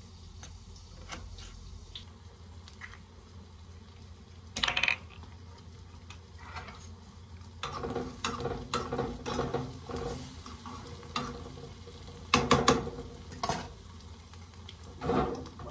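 Breakfast being prepared. First a knife taps lightly on a wooden cutting board, then a pan and utensils knock and scrape on a gas stove, with several loud clatters of cookware.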